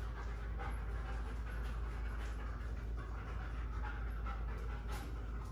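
Dog panting steadily, over a steady low hum.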